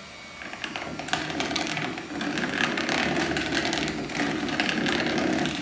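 Electric hand mixer running with its beaters in a plastic bowl of cake mixture, whirring with a steady clicking rattle; it gets louder about two seconds in.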